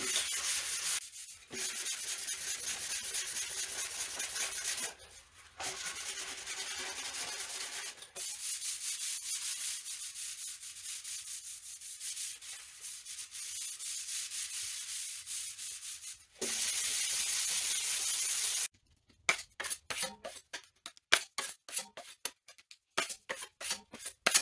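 Body filler on a car fender being hand-sanded with sandpaper on a block: a rasping hiss in quick back-and-forth strokes, stopping briefly now and then, then a steadier hiss for about two seconds. Near the end comes a quick run of short, sharp ticks and scrapes.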